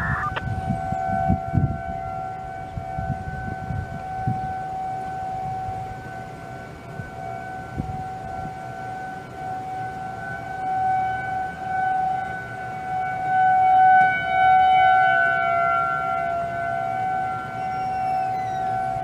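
Several Federal Signal outdoor warning sirens, mainly 2001-SRN units, sounding a steady alert tone together at slightly different pitches. The tone swells and fades as their rotating horns turn, and is loudest a little past the middle.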